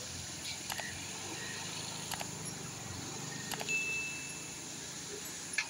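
Steady rushing of a fast-flowing river, with a few light clicks and a brief high whistle about two-thirds of the way through.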